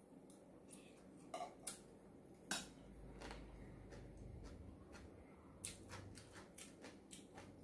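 Faint eating sounds: wooden chopsticks clicking against ceramic bowls and plates while picking up boiled water spinach, with a few sharp clicks in the first half and a cluster of lighter clicks near the end.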